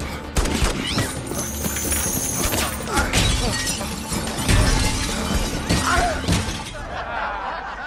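Plate glass shattering with repeated crashing impacts, over a film music score.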